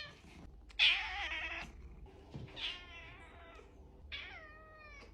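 Domestic cat meowing three times, the first call the loudest and the last falling in pitch.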